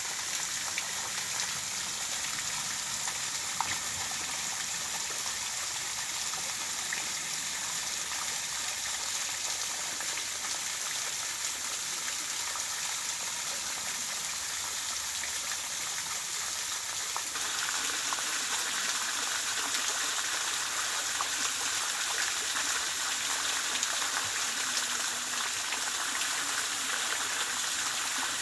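Running water with a steady, even rush; the sound changes slightly about two-thirds of the way through.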